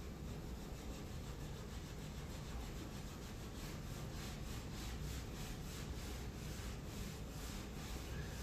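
Steel wool pad scrubbing a stripped wooden countertop with the grain, a faint back-and-forth rubbing of about three strokes a second. It is lifting the softened, pasty varnish-stripper residue from the wood.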